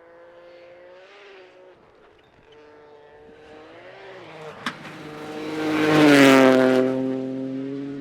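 Rally car approaching at speed, its engine climbing and breaking as it shifts up through the gears, with a single sharp crack a little before it goes past. It is loudest about six seconds in, then the engine note drops as the car moves away.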